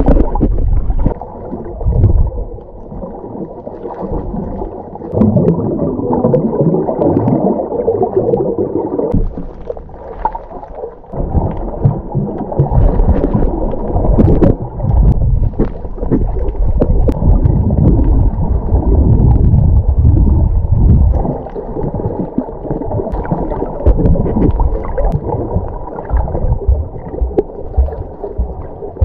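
Muffled underwater gurgling and sloshing of water against a submerged camera, swelling and easing in uneven surges, with scattered faint clicks.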